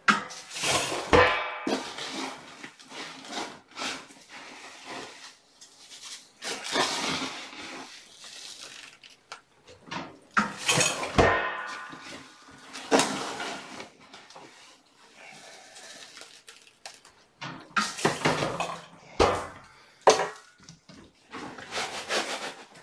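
Cat litter being scooped in a plastic litter box: irregular bursts of gritty scraping and rattling, with small clinks and knocks.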